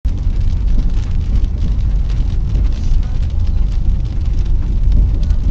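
A car driving on a wet road, heard from inside the cabin through a dashcam as a loud, steady low rumble, with faint patter of rain on the windshield.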